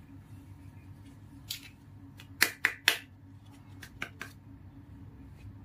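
Hard plastic toy parts clicking and snapping together as a small toy heart monitor is fitted onto its stand. A light click comes first, then three loud clicks in quick succession about halfway through, then a few lighter ones.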